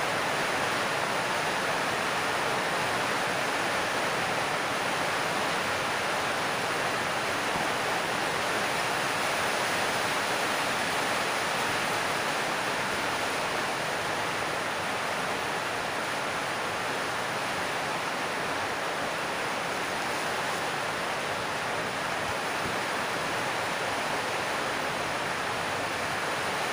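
A steady, even rushing noise that holds at one level, with no distinct clicks or tones.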